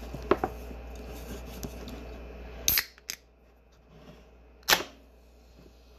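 Coke can being opened by its pull tab: a couple of small clicks as fingers work the tab, a sharp crack a little under three seconds in, then a louder pop with a brief trailing fizz near five seconds in as the carbonated can's seal breaks.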